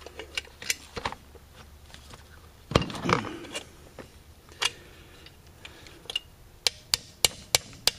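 Hand tools clicking and tapping on the metal body of an Autolite 4100 four-barrel carburetor as it is handled and worked on. There is a louder knock about three seconds in, then a quick run of sharp clicks near the end as a screwdriver works at the throttle-plate screws.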